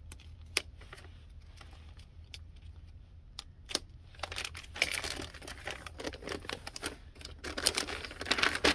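Plastic protective sleeve around a new laptop being handled: a few sharp clicks and taps as its tape is cut and peeled, then rustling and crinkling as the sleeve is pulled open and off the laptop, loudest near the end.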